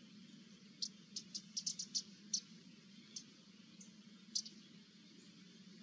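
A run of short, sharp, high-pitched ticks, about ten in quick irregular succession and then a few more spaced out, over a low steady hum.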